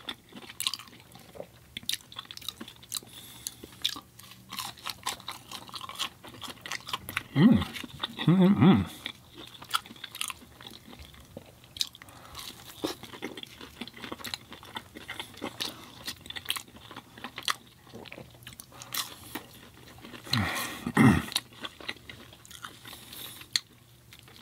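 Close-miked chewing and biting of food: many small wet mouth clicks and crunches. Twice, about seven seconds in and again about twenty seconds in, a short voiced sound rises above the chewing.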